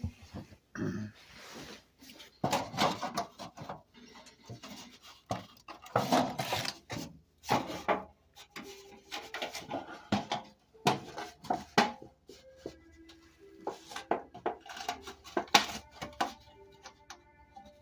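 Irregular bursts of scraping, rustling and knocking from hands-on work, with faint background music coming in about halfway through and growing clearer near the end.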